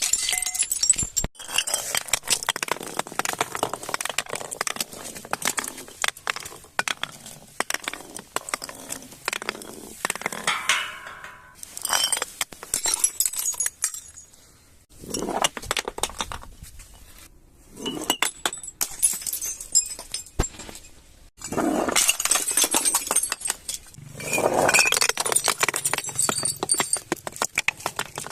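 Glass bottles clinking and breaking, with a dense crackle of shattering glass and shards, in repeated bursts separated by short pauses.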